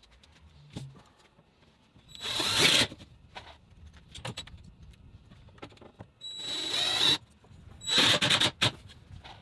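Cordless drill driving screws into a plywood panel in three short runs of under a second each, about 2 s in, about 6.5 s in and about 8 s in. Light knocks and taps of handling come in between.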